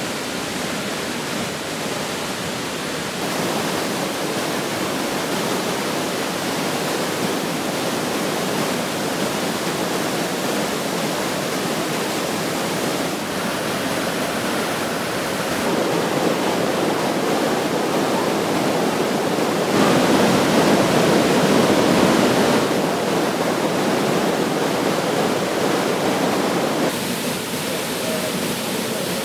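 Waterfall's steady, dense rush of falling water and spray, shifting abruptly in loudness and tone several times, loudest about two-thirds of the way through.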